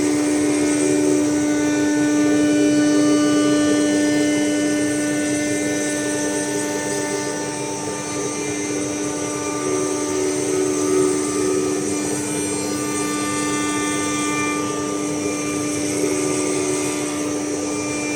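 A 4-axis CNC router's spindle running with a steady whine while the bit carves wood. Fainter higher tones and cutting noise come and go over it as the cut proceeds.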